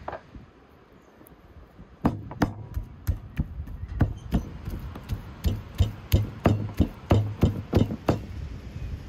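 A meat cleaver chopping raw fat on a wooden stump chopping block: a steady run of sharp chops, roughly three a second, starting about two seconds in and stopping near the end.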